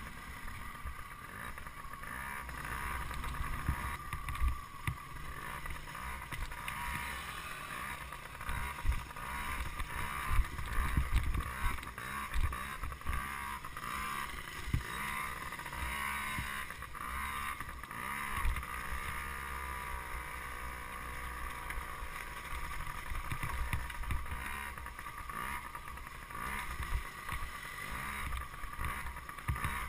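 Dirt bike engine running at trail speed, with wind on the microphone and knocks from the bumpy trail. A little past halfway the engine's pitch rises and falls with the throttle.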